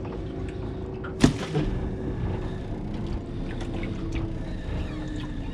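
Steady low rumble and hum of a boat on the water, with one sharp knock a little over a second in and a few smaller clicks after it.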